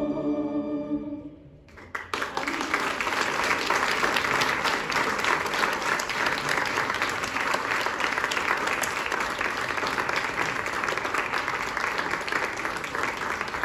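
A choir and its small instrumental ensemble hold a final chord that dies away about a second in. After a short pause an audience breaks into steady applause.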